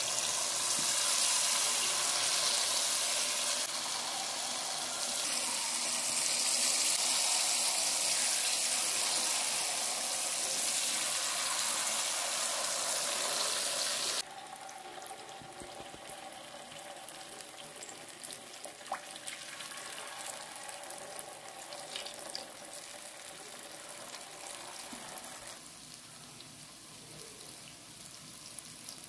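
Unniyappam batter frying in hot oil in a multi-cavity unniyappam pan: a steady sizzle of bubbling oil. About halfway through it drops abruptly to a softer sizzle.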